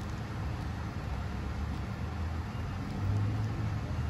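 Steady low engine rumble, with a low hum that gets louder about three seconds in.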